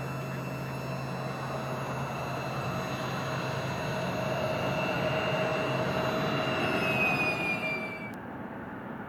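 Embraer ERJ-170's twin General Electric CF34-8E turbofans whining at taxi power, steady high tones over a rushing hiss that grows louder toward seven seconds in. About eight seconds in the high whine cuts off and the sound drops.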